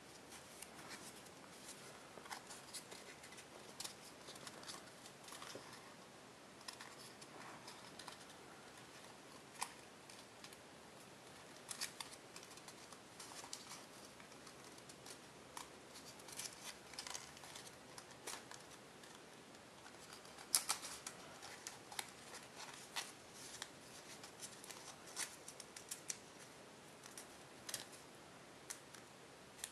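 Origami tissue-foil paper being folded and creased by hand: scattered crinkles and sharp little clicks of the stiff foil paper, the loudest a little past two-thirds of the way through.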